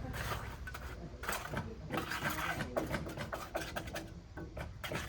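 Carpentry work on timber: irregular scraping, rubbing and knocking strokes over a low steady rumble.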